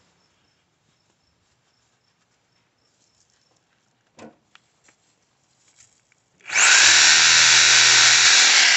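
Bosch reciprocating saw starting up about two-thirds of the way through and running loud and steady at full speed, its blade cutting into a tree limb. Before it, near silence with one faint knock.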